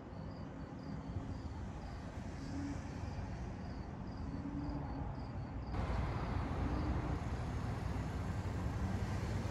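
Low steady rumble of a bulk carrier's engine as the ship moves slowly through a canal lock, with crickets chirping in a regular pulse about twice a second. About two-thirds of the way in the rumble jumps louder and the chirping stops.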